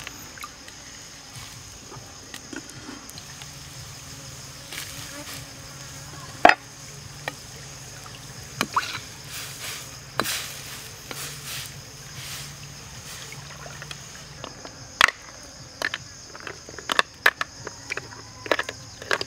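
Steady high insect chorus, with scattered sharp clicks and knocks from cooking work over it: a metal ladle in a steel wok, and toward the end, hard snail shells clacking against each other and a wooden board as they are picked up. The loudest knock comes about a third of the way in.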